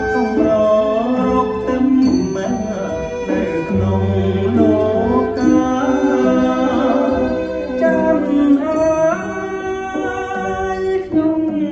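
Khmer song playing as dance music: a voice singing a slow, gliding melody over instrumental accompaniment.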